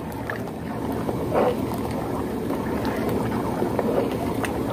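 Steady low rumbling noise, without words.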